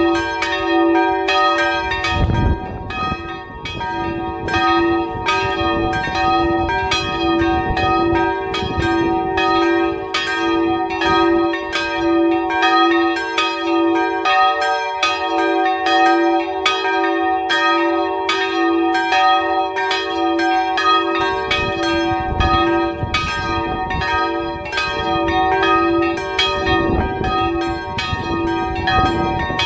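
Three small church bells swinging together, ringing in a continuous, overlapping peal of rapid strikes that does not let up.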